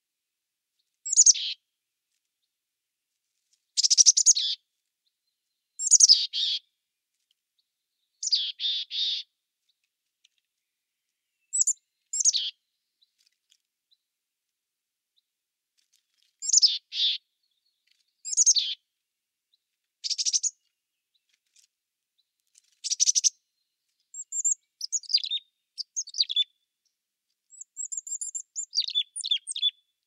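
Chickadee calling: short high chirps that slide downward in pitch, coming one or a few at a time with pauses of a second or more between them, then a quicker run of high chips over the last several seconds.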